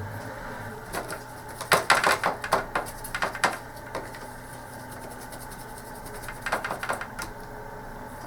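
Dry cotton swab rubbing over joystick button parts with carbon contacts: two bursts of quick scratchy strokes and small plastic clicks, over a steady low hum.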